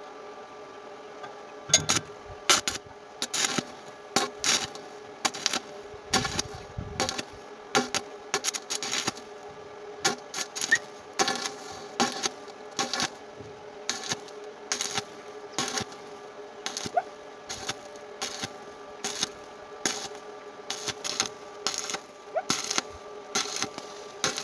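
Stick (arc) welding on thin iron: the arc crackles and pops in short, irregular bursts, several a second, over a steady hum.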